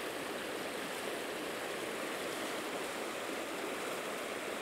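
Shallow river rapids rushing steadily over rocks, a constant even wash of flowing water.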